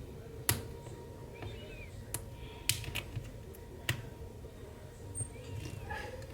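A few light, sharp clicks and taps of small tools and phone parts being handled during a phone screen repair, over a steady low hum.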